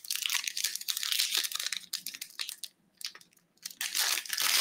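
Foil wrapper of a Prizm trading-card pack crinkling and tearing as it is torn open by hand, in two spells with a short pause about three seconds in.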